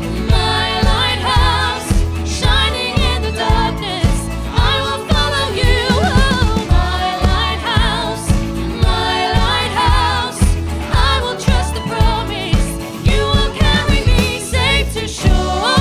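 Contemporary Christian worship song playing: a singer over a band with a steady beat.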